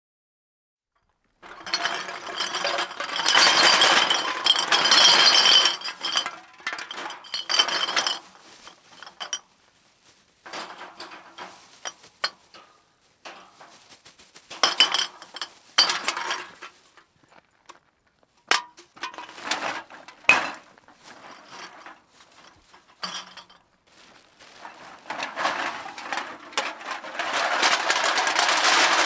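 A bag of empty aluminium drink cans being shaken and handled, the cans clinking and rattling against one another in irregular bursts. The dense rattling comes about two seconds in, about halfway through and near the end, with sparser single clanks between.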